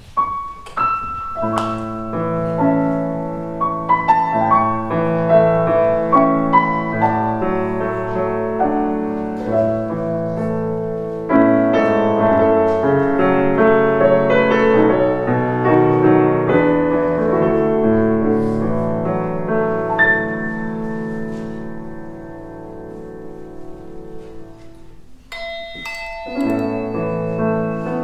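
Slow music on 'Prologue' practice handbells with piano accompaniment: sustained ringing notes over piano chords. About 25 seconds in the music thins briefly, then starts again with higher bell notes.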